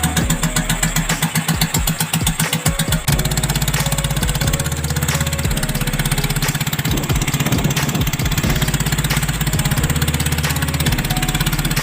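Small fishing-boat engine running steadily with a fast, even chugging beat; the beat shifts slightly about three seconds in.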